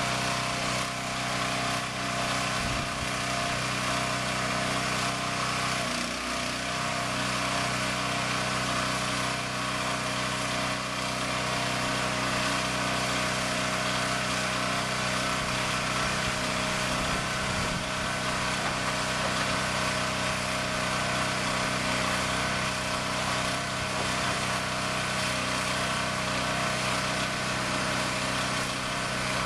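Container delivery truck's engine running steadily at idle, a constant hum under a strong hiss, with no change in speed.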